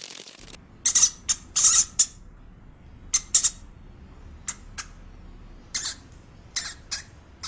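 A small animal's short, high-pitched squeaks, about a dozen in irregular clusters.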